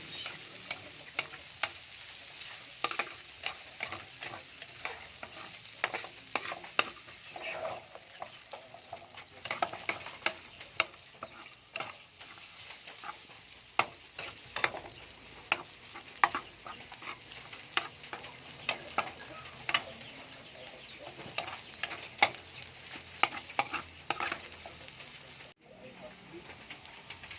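Sliced spiced ham sizzling as it fries in hot oil in a pan, a steady hiss, with frequent sharp clicks and scrapes of a utensil stirring it against the pan. The sound drops out for an instant near the end.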